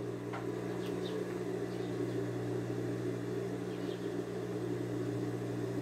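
Steady low electric motor hum with a few faint light taps.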